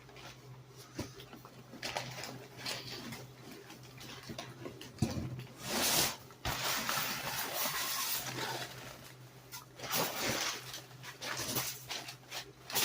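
Cardboard box and packing material being handled during unpacking: rustling and scraping in uneven bursts, with a few knocks, loudest in the middle.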